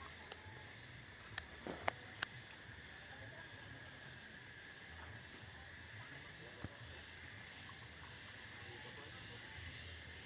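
Steady high-pitched insect chorus, with two short knocks about two seconds in.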